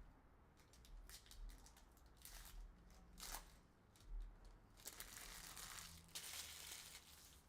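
Faint tearing and crinkling of a trading-card pack's foil wrapper, with short rustles and clicks from the cards being handled. There is a longer run of crinkling about five seconds in.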